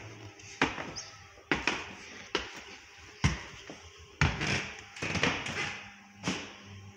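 Footsteps on a bare wooden floor: a steady series of sharp knocks, about one a second.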